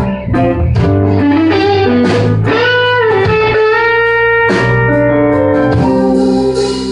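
Live slow blues music between sung lines: a guitar plays held lead notes with string bends over steady low bass notes.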